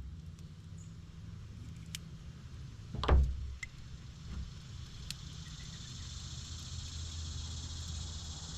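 Faint clicks and taps of a small metal multi-tool being handled while its blade pivot screw is tightened, with one heavier thump about three seconds in, over a low steady hum.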